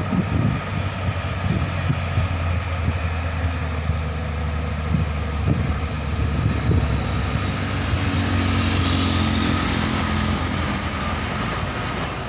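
Hino 500 truck's diesel engine working up a steep climb, a steady low drone that grows louder and fuller in the second half.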